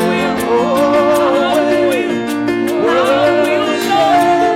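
Worship song: a lead singer holds a long, wavering sung note on the word "will", with the pitch sliding down about two seconds in and rising again, over sustained band chords and a steady beat.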